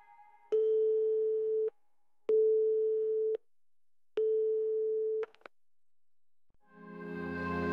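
Three long electronic beeps at one steady mid pitch, each lasting about a second with short gaps between, followed by a couple of quick clicks. Music fades in near the end.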